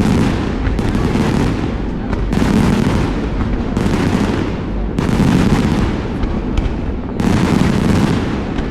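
Aerial fireworks going off: about five sharp booms, one every second or two, over a continuous low rumble of bursts.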